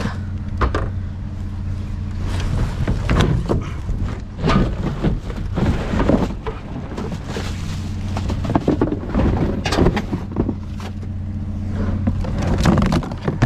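An engine idling steadily under repeated clatter and knocks of junk being shifted and handled while rummaging through a dumpster.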